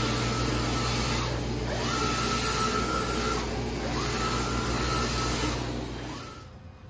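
Mimaki JFX200-2513 UV flatbed printer printing on glass: the print-head carriage sweeps back and forth, its motor whine rising, holding and falling with each pass, about four passes, over a steady hum from the machine. The sound drops away near the end.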